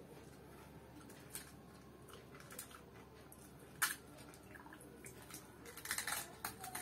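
Quiet wet eating sounds of phuchka (pani puri): a filled, crisp hollow shell handled and dipped in a steel bowl of tamarind water, with one sharp tap about four seconds in. Near the end a quick run of crunching and mouth noises as the whole shell is eaten.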